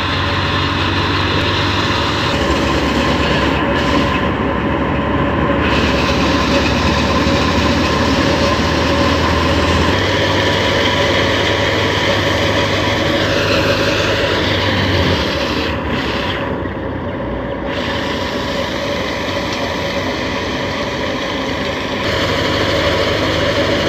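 Tractor-driven grain thresher running with the tractor's diesel engine under load: a loud, continuous mechanical din with steady whining tones. The tone shifts abruptly a few times.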